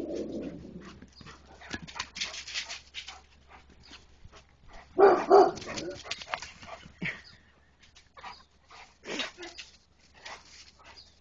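Dogs barking during play: a loud pair of barks about five seconds in, with a few shorter barks later.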